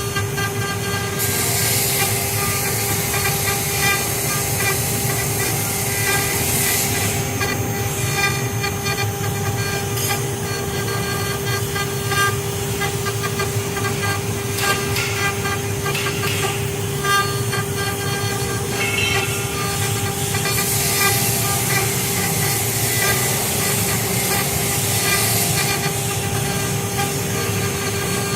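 CNC router running: a steady, high spindle whine held at one pitch, with changing machining noise over it.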